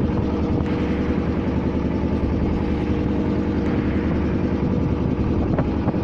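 A fishing boat's engine running steadily, an even, unchanging hum.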